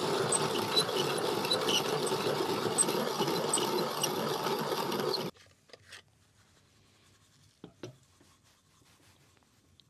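Hand-turned salt mill grinding with a steady rasping crunch, stopping abruptly about five seconds in; a few faint knocks follow.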